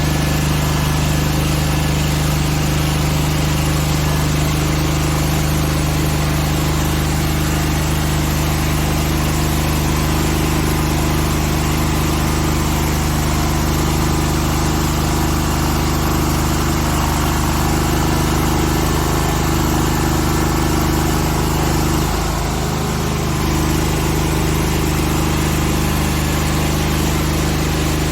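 Gasoline generator engine (Vermogen VG-CMGE 11000, 11 kW) running steadily at constant speed. It briefly dips in level and pitch about twenty-two seconds in, then recovers.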